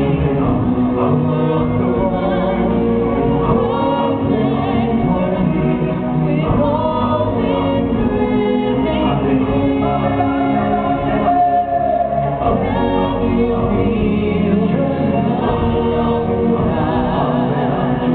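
Stage-musical music with a choir of voices singing over the instrumental backing, loud and continuous.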